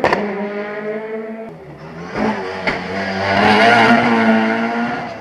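Rally car engine receding at high revs after passing the corner. About one and a half seconds in, the engine of the next rally car rises as it approaches, with a couple of sharp bangs, and then fades again.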